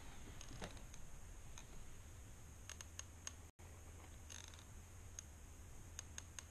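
Faint, scattered ticks and light scratches of a fountain pen nib on sketchbook paper, over a low steady hum.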